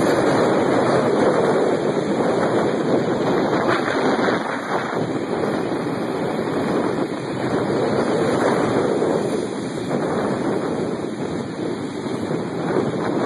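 Strong wind from a tornado buffeting the microphone: a steady rushing noise that swells and eases slightly in gusts.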